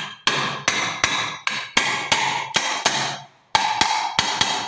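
Rapid hammer blows on a washing machine's metal bearing assembly, about three to four strikes a second, each with a short metallic ring, with a brief pause a little past three seconds in. The blows drive the new drum bearing into place.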